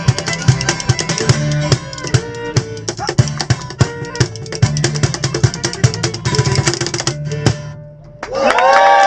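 Live band of drum kit, bass and guitar playing the closing bars of a song with a steady beat, stopping suddenly about seven and a half seconds in. A moment later the crowd breaks into loud cheering and whooping.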